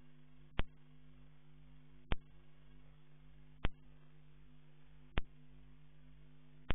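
A steady electrical hum with a sharp click about every one and a half seconds, five clicks in all.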